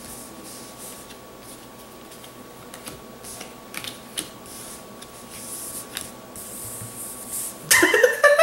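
Sleeved trading cards being slid, picked up and set down on a playmat: soft scraping with a few light clicks and taps, the sharpest between about three and six seconds in.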